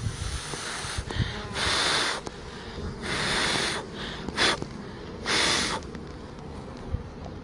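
Four short hissing puffs of air, the first two about half a second long and the last about half a second, over low handling rumble.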